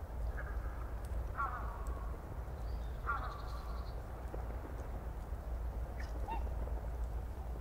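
A bird calling in the background: three drawn-out calls in the first few seconds, then a shorter one near the end, over a steady low hum.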